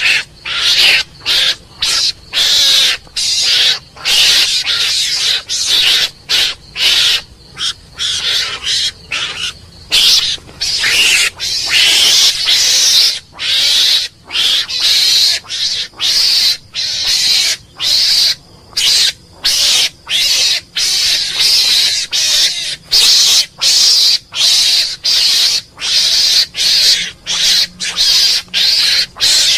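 Mongoose calling: a rapid, unbroken run of harsh, high-pitched calls, about two a second, with short breaks between them.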